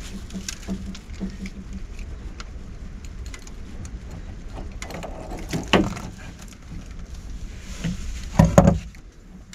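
Scattered small clicks and taps of tools and brass fittings being handled at the top of an unvented hot water cylinder. There is a louder knock about halfway through and a cluster of heavier knocks near the end.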